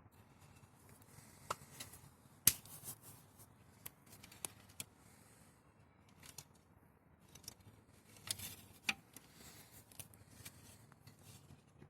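Scattered sharp clicks and light rustling as a plastic 12 V fan unit is handled, with the loudest click about two and a half seconds in. No running fan motor is heard.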